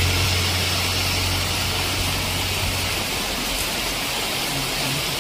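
Heavy rain hissing steadily, with the low engine hum of a small box truck fading over the first three seconds as it drives away along the wet road.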